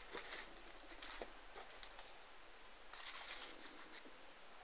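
Faint rustling and light taps of a cardboard View-Master reel packet being handled and set down on a table. The small scuffs come scattered, with a denser bout of rustling about three seconds in.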